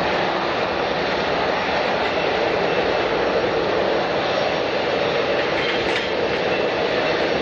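Jet airliner engines running: a loud, steady rushing noise with no break.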